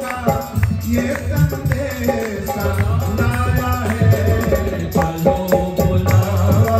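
Man singing a Hindi devotional bhajan to Durga into a microphone over live music with a steady percussion beat.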